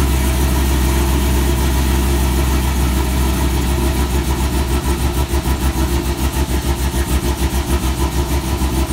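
Low steady hum of the car and its newly wired intercooler pump. About four seconds in, it starts pulsing rapidly, about six times a second: the pump cutting in and out on its relay, which the owner takes as a sign that the fuse 47 (FSCM ignition) source doesn't give it steady power.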